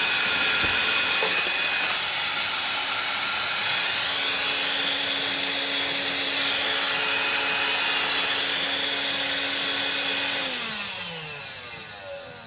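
A loud electric motor appliance runs steadily with a whine. Near the end it is switched off, and its pitch slides down as it spins to a stop.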